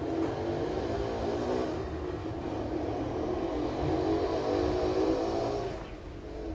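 A motor vehicle's engine rumbling, dying away about six seconds in.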